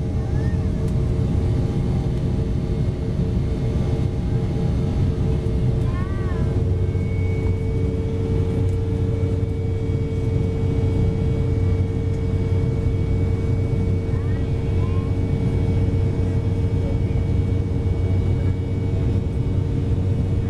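Embraer 190 cabin noise during the climb after takeoff: the General Electric CF34 turbofans and the airflow make a steady low rumble with a constant hum over it.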